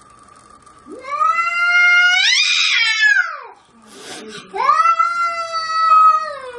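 A cat yowling in two long, drawn-out calls. The first rises in pitch; the second starts about a second later and slides down at the end.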